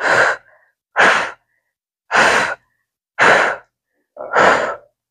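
A person breathing out hard, five forceful exhales about a second apart, in rhythm with exercise repetitions.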